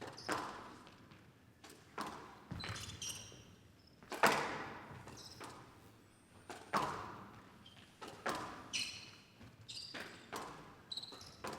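A squash rally: the ball cracks off rackets and the court walls about every one to two seconds, each hit ringing in a large hall. Between shots come short, high squeaks of players' shoes on the court floor.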